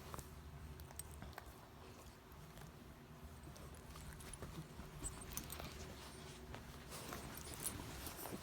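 A pet moving about: faint scattered clicks and rustles over a low steady hum, the clicks coming more often near the end.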